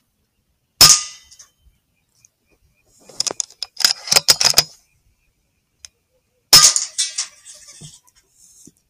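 Two shots from a .22 FX Impact M3 PCP air rifle, about six seconds apart, each a sharp crack with a short ringing tail. Between them comes a rapid run of clicks and rattles lasting about a second and a half.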